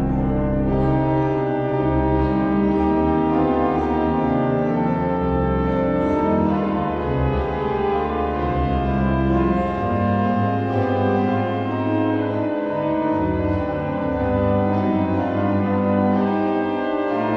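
Pipe organ playing slow, held chords over a deep bass line that moves to a new note every few seconds.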